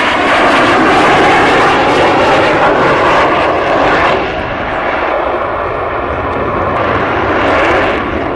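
Loud jet noise from a Saab JAS 39 Gripen's single Volvo RM12 turbofan as the fighter pulls through tight aerobatic turns. The noise eases a little about four seconds in and swells again near the end.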